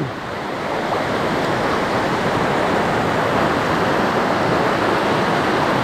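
Creek water rushing, a steady, even noise of the current and nearby white water.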